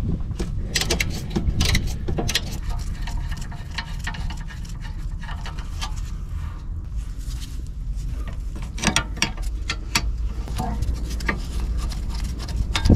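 Hand tools clicking and tapping on metal as the 13 mm caliper-to-carrier bolts of a rear brake caliper are undone, in scattered quick clicks, with a steady low rumble underneath.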